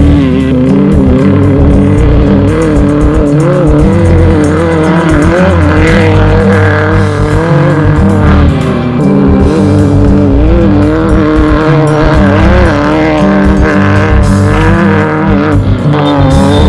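Off-road race vehicle's engine revving up and down under throttle, with background music mixed in.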